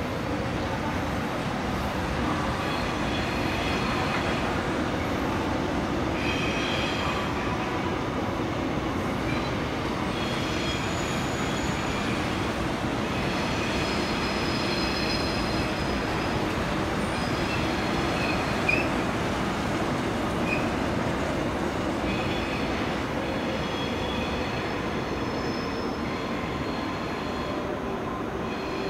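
A long multi-car passenger train rolling past with a steady rumble, and high wheel squeals that come and go as it runs.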